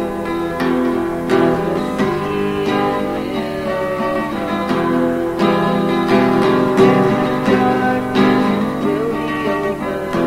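Instrumental music of picked acoustic guitar and mandolin, with a steady run of plucked notes and occasional strums.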